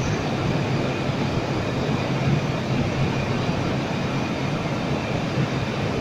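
Blown-film plastic extrusion line and its film winder running, a steady, even machine hum with no breaks.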